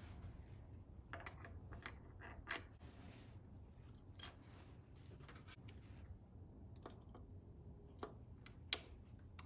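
Light metallic clicks and taps of small parts being fitted on a Toyota HF2A transfer case shaft, then snap-ring pliers at work on the shaft, with a few sharp clicks near the end, the loudest a second before the end.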